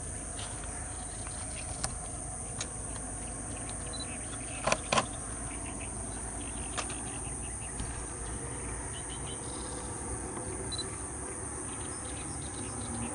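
Outdoor dawn ambience: a steady high-pitched insect drone over a low rumble, broken by a few sharp clicks, the loudest a pair about five seconds in.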